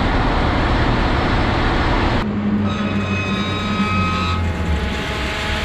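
Loud, steady machinery noise aboard a ship, a low rumble with hiss. About two seconds in it changes to a noise with several steady whining tones.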